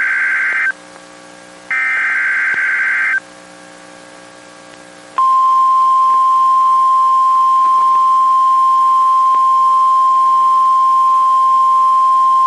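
Emergency Alert System SAME header: the end of one raspy digital data burst, then a final burst of about a second and a half beginning about 1.7 s in. About 5 s in, the single-pitched steady warning alarm tone of NOAA Weather Radio starts and holds, announcing a severe thunderstorm warning.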